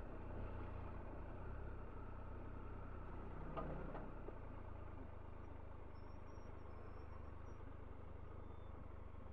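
Motorcycle engine running steadily at low revs, a low muffled hum, with a brief higher-pitched sound about three and a half seconds in.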